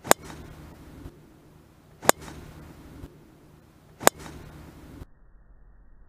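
Golf driver striking a ball off the tee: a sharp crack, three times about two seconds apart.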